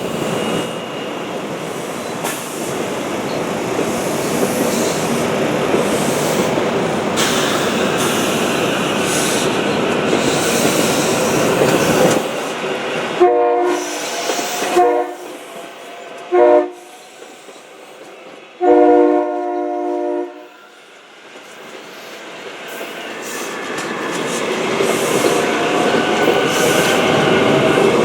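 A passing train's wheels rumbling on the rails, then a train horn sounding four times, three short blasts and a longer final one. Afterwards another train's running noise grows louder as it approaches.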